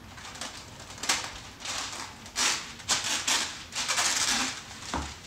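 Parchment paper pulled off its roll in the box and spread over a baking sheet: a run of irregular rustling and crinkling bursts from about a second in until near the end.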